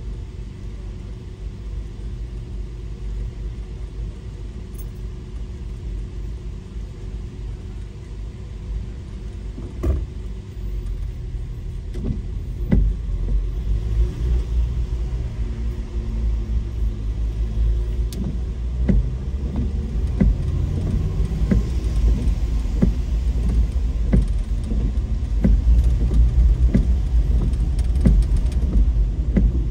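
Car driving: a steady low road rumble that grows louder about twelve seconds in. From then on there are irregular light clicks and knocks.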